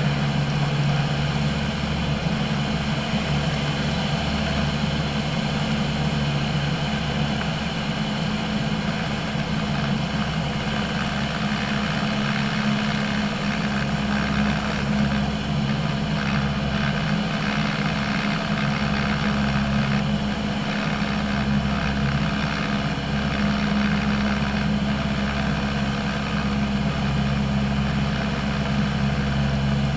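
Piston engine and propeller of a single-engine light airplane droning steadily in cruise, heard inside the cabin, with a low even hum and no change in power.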